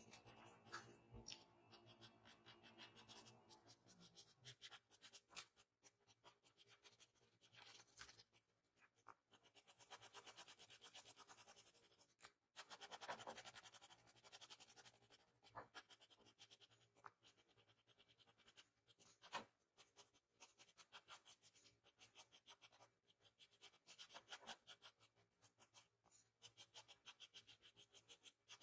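Pencil scratching on paper in runs of quick, short strokes with brief pauses, shading strands of hair.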